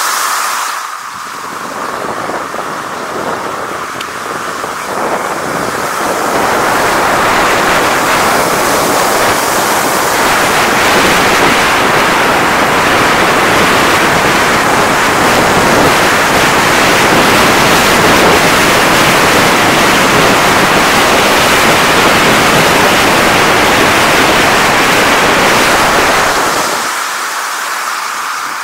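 Steady rushing noise of wind on the microphone and skis running over snow-covered ice while snowkiting. It grows louder about six seconds in as speed picks up and drops off near the end.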